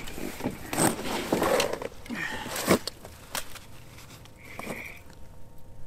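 Handling noise while a hooked white perch is reeled up through an ice hole on a short ice-fishing rod: rustling of heavy winter clothing with irregular clicks and knocks from the reel and rod. Two brief high squeaks, one a little past two seconds in and one near the end.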